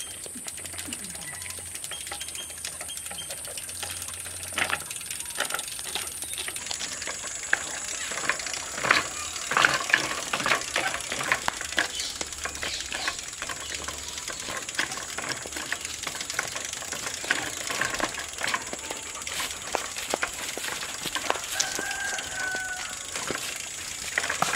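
Outdoor ambience: a steady high-pitched insect drone that drops slightly in pitch about a quarter of the way in, with scattered clicks and taps and a short animal call near the end.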